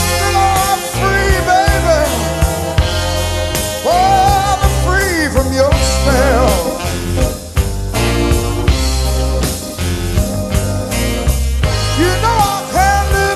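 Live blues band playing a slow minor-key blues between sung lines: steady bass and drums under a lead line that bends and wavers in pitch.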